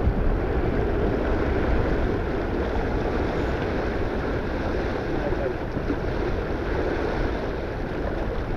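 Steady rush of wind buffeting the microphone over water surging along the hull of a sailboat running downwind.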